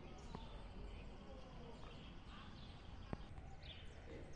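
Faint ambience: small birds chirping now and then over a low steady rumble, with a single sharp click about three seconds in.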